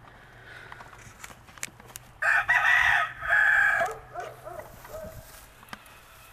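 A rooster crows once, starting about two seconds in: a loud call of nearly two seconds with a short break in the middle. A few quieter short calls follow.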